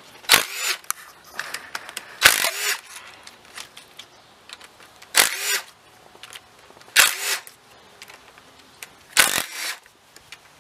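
A power tool running in five short bursts a couple of seconds apart, each winding down at the end, as it backs the rocker arm bolts out of a GM 3800 V6's cylinder head.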